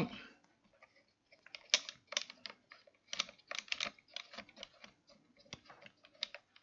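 Irregular light clicks and taps as the clips of a trim stop are loosened and tightened on the base of a Festool Domino 700 joiner, some coming in quick little clusters.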